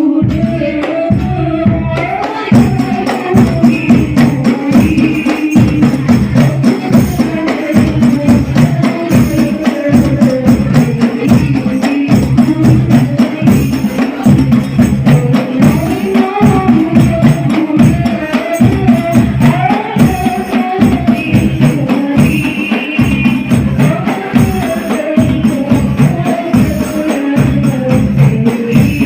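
Hadroh ensemble playing over a sound system: frame drums (rebana) and a bass drum beat a steady, fast rhythm with tambourine jingles, under a voice singing a devotional melody. The full drumming comes in about two seconds in.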